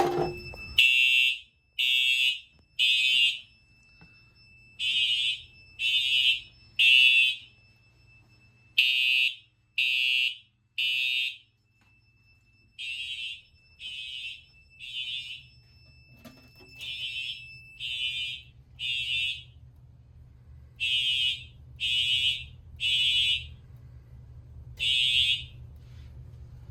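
Fire alarm horns on a test system sounding the temporal-3 evacuation pattern: three short horn blasts about a second apart, a pause, then the next three, repeating after a pull station has been activated. A fainter steady tone runs underneath until partway through.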